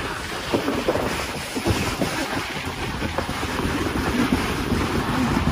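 Rubber inner tube running and bumping down a green mesh-lined tubing slide, a steady rushing noise with scattered knocks, mixed with wind buffeting the phone's microphone.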